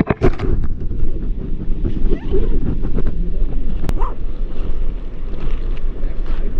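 Wind rumbling on the microphone, a loud steady low rush, with a single sharp click about four seconds in.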